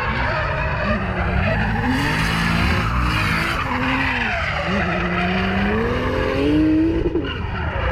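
Drift car's engine revving up and down as it slides sideways through a corner, with tyres skidding and smoking. Near the end the revs climb steadily for a couple of seconds, then drop off.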